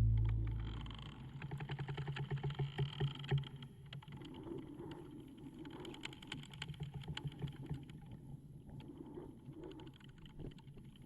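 Background music fades out within the first second. A machine then runs with a low, pulsing hum and rapid, irregular clicking and ticking, loudest for the first few seconds.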